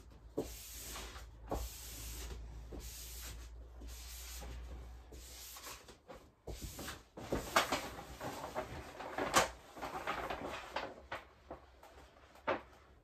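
Peel-and-stick wallpaper being rubbed and smoothed onto a wall: repeated soft rubbing strokes, then a run of sharper clicks and knocks from about halfway through.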